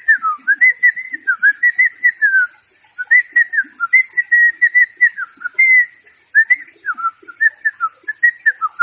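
Parrot whistling a fast run of short notes, mostly on one pitch with quick downward dips, pausing briefly twice.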